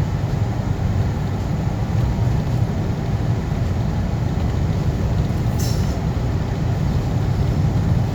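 Steady low road rumble inside a moving car's cabin: engine and tyre noise while driving.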